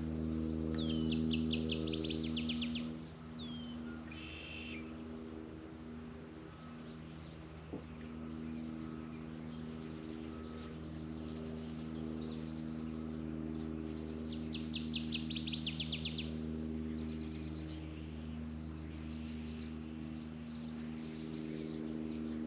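A songbird singing quick, high, trilled phrases, loudest about a second in and again around fifteen seconds in, with shorter calls between. A steady low hum runs underneath.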